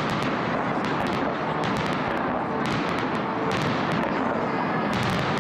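Fireworks salute: many shells bursting in quick succession, a continuous run of booms with sharp cracks and crackling on top, without a pause.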